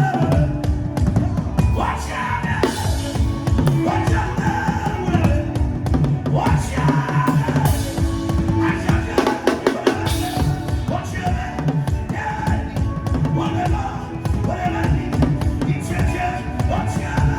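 Music with fast, busy drumming on a drum kit and bass drum, a steady bass line, and voices singing over it.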